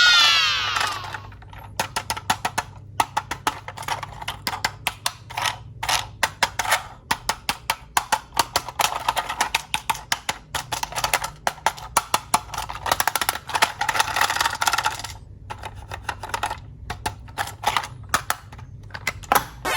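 Rapid, irregular clicking and clattering of small hard objects, thinning out for a couple of seconds near the three-quarter mark, with a short falling squeal at the very start.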